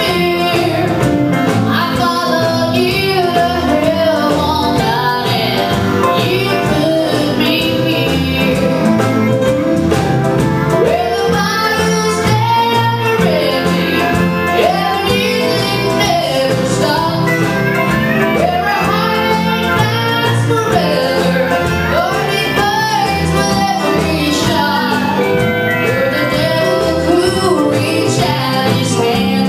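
Live country band performing a song: a woman singing lead over electric guitar and drums.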